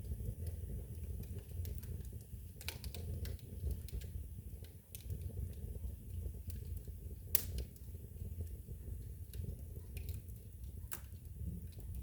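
Wood fire burning in a fireplace: irregular sharp crackles and pops over a low, steady rumble of the flames, with one louder pop a little past halfway.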